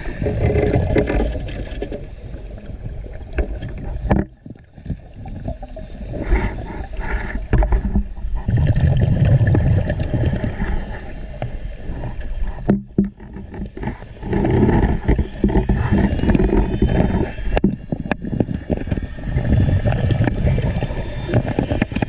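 Scuba diver's regulator breathing heard underwater: long rumbling gushes of exhaled bubbles come in several stretches, with short quiet gaps between them.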